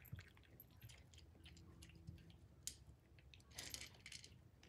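Kittens faintly crunching dry kibble: scattered small crunches and clicks, with a brief rustle shortly before the end.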